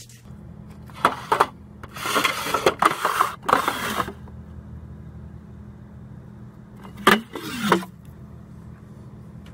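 Steady low hum with several bursts of rustling and scraping as metal food cans are handled and lifted off a store shelf.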